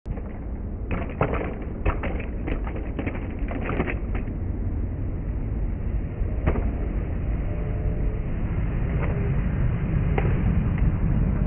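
Skateboard on a concrete sidewalk: a quick run of sharp clicks and knocks about one to four seconds in as the rider shifts and taps the board, then a few single knocks, over a steady low rumble. A car passes near the end.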